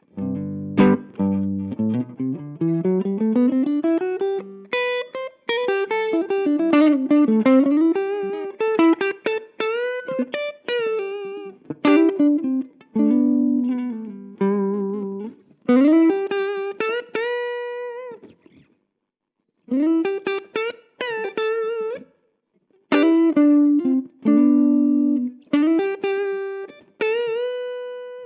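Electric guitar played through an amp in a boost-pedal demo: single-note lead lines with slides, bends and held notes, in a fairly clean tone. It opens with a rising slide and pauses briefly twice near the end.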